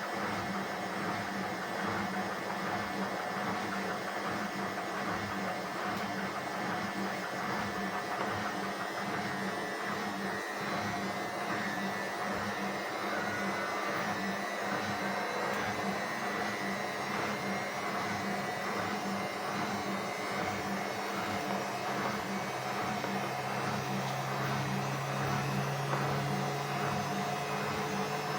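Indesit WISN 101 front-loading washing machine running its rinse: a steady motor hum with the drum turning, and a new low hum joining about three quarters of the way through.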